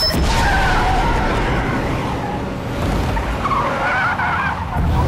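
Car tyres squealing in a skid, two wavering screeches, one near the start and a stronger one about three and a half seconds in, over a low rumble.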